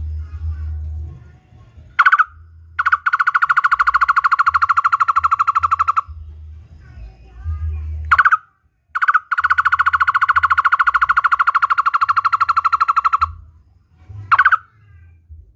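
Barbet calling: a short swooping note followed by a long run of rapid, evenly repeated notes at one pitch, given twice. A third short note comes near the end.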